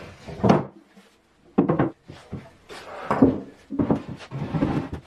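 Heavy laminated softwood frame being handled on a workbench: a series of irregular wooden knocks and thumps as it is shifted and set down on a plywood box.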